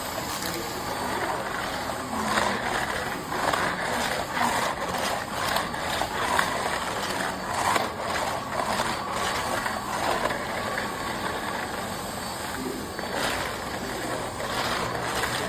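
PKUYIE 1600 W bagless canister vacuum cleaner running steadily as it is worked over a floor, with scattered clicks and knocks from the nozzle and debris.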